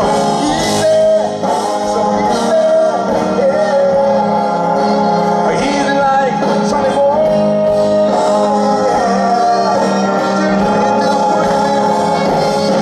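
Live band music played through a large outdoor PA, with a male lead singer holding long notes over the band.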